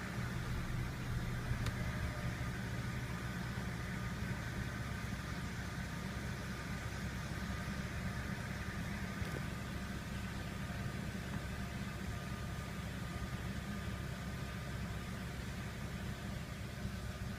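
BMW engine idling steadily, with no revving.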